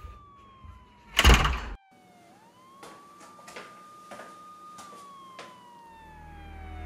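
Police siren wailing outside, its pitch holding, then sliding down slowly and sweeping back up, twice over. A loud, brief rushing noise about a second in stops abruptly, and a low rumble swells in near the end.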